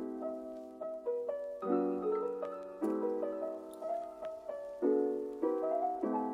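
Background piano music: gentle chords with a melody on top, each chord struck and left to fade, a new one about every second.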